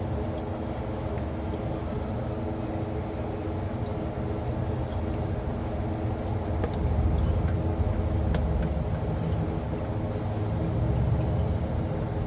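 Steady mechanical hum of workshop background noise, with several steady tones and a low rumble that swells twice, and a few faint clicks.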